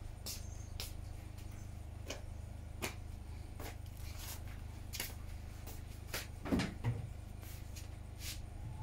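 Scattered light clicks and knocks over a steady low hum, with a heavier, duller knock about six and a half seconds in.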